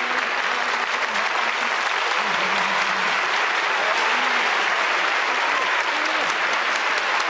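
Studio audience applauding steadily, with a few voices calling out through the clapping.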